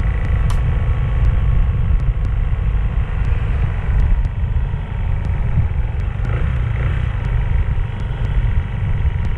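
Motorcycle riding at a steady speed: a steady low rumble of wind buffeting the microphone with the engine running under it.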